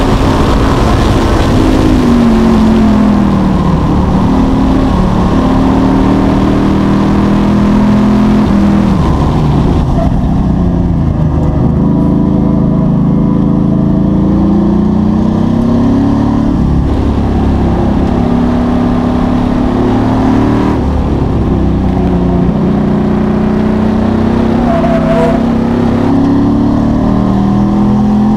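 Car engine driven hard around a race track, its pitch climbing under acceleration and falling away again several times as the car slows for corners.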